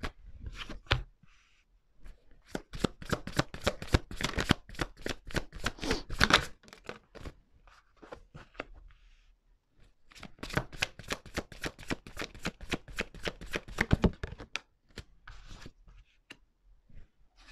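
Tarot cards being shuffled by hand in two long runs of rapid flicking card clicks, the first starting about two seconds in and the second about ten seconds in, then a few single cards laid down near the end.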